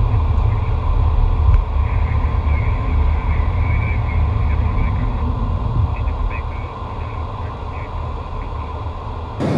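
Steady low rumble of a Boeing 727 Super 27 in flight, heard inside its cockpit, easing a little in the last few seconds.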